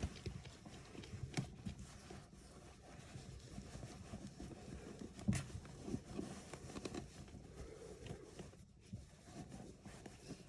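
Faint scattered light knocks and rustling over a low rumble, a couple of them a little sharper about a second and a half in and again about five seconds in.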